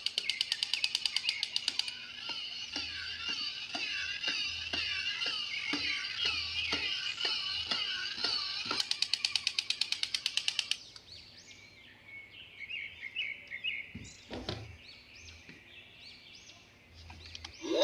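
Battery-powered electronic toy playing its sound effects: a rapid buzzing pulse, then warbling high electronic tones over a steady click about twice a second, then the rapid pulse again. It stops about eleven seconds in, leaving only faint chirps and a single click.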